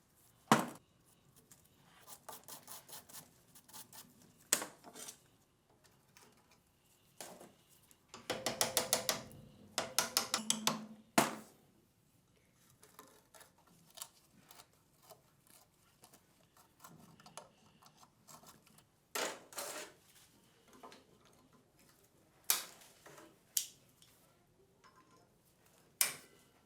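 Metal parts and hand tools being handled: scattered sharp clinks and knocks, with two runs of fast, even clicking about a third of the way in.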